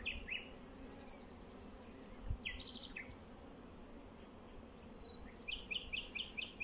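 Honeybee colony humming steadily around an open hive while a brood frame is held out of it. A small bird chirps over it: a couple of short falling chirps, then a quick run of about six repeated notes near the end.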